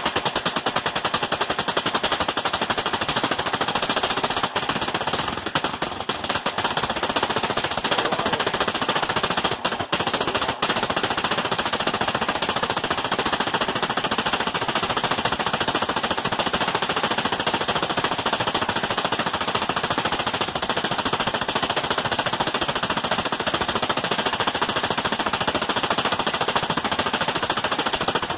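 Homemade propane-fuelled pulse jet engine running: a continuous, very rapid rattle of combustion pulses, like machine-gun fire. It briefly stutters about ten seconds in.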